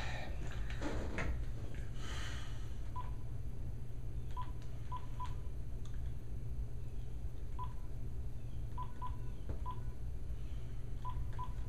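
Telephone keypad beeps as a number is dialed: about a dozen short beeps of one pitch in uneven groups, over a low steady hum.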